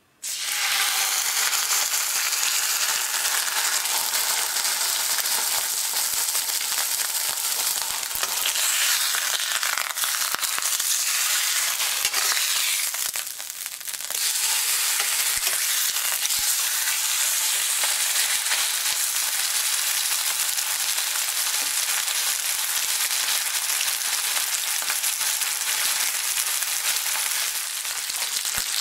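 Wagyu sirloin steak sizzling in hot oil in a stainless steel frying pan, starting suddenly as the meat is laid in. The sizzle dips briefly about thirteen seconds in as the steak is lifted and turned, then carries on.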